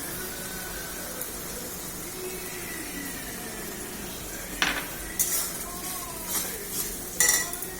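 Spoon stirring onion paste frying in a kadai: a faint sizzle, then in the second half a run of sharp clinks and scrapes of the spoon against the pan, the loudest near the end.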